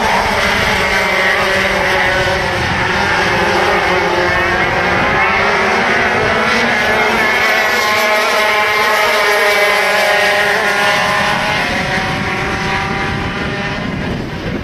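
Several racing kart engines running hard at high revs as a pack of karts laps the circuit. Their overlapping notes rise and fall in pitch as the karts accelerate and back off through the corners.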